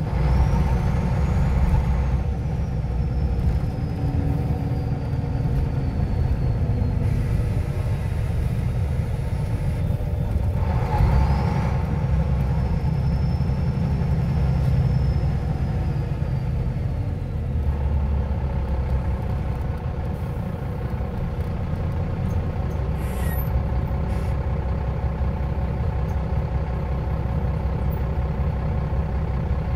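Scania OmniLink I (CL94UA) city bus heard from inside the passenger cabin while under way: a steady low engine drone, with a thin high whine that rises and then slowly falls, twice. A short sharp noise comes about three-quarters of the way through.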